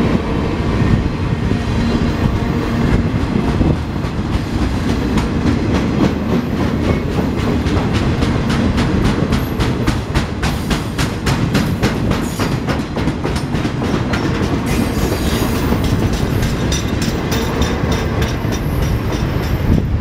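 Freight cars rolling past close by: a steady low rumble of wheels on rail. From a few seconds in, a rapid, regular clickety-clack of the wheels passing over rail joints runs until near the end.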